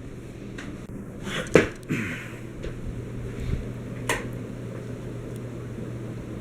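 52-inch SMC four-bladed ceiling fan running, a steady motor hum with moving-air noise, broken by a few light clicks or knocks about one and a half, two and four seconds in.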